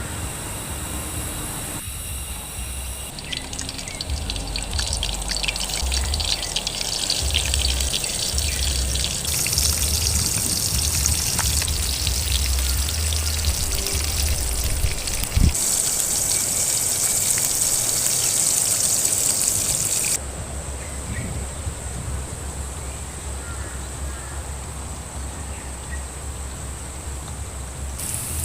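Steady noise of running or trickling water with a low rumble underneath, changing abruptly in level and tone several times.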